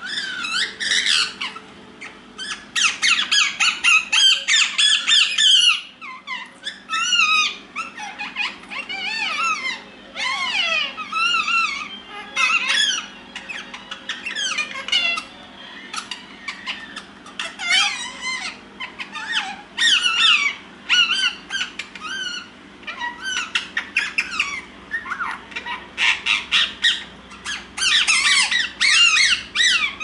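Indian ringneck parakeets chattering to each other: rapid squeaky chirps and whistles that sweep quickly up and down in pitch, coming in bursts with short gaps.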